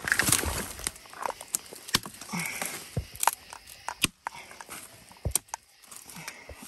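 Footsteps pushing through thick dry weeds and brush, with stems and twigs snapping and crackling in irregular sharp clicks and a burst of rustling at the start.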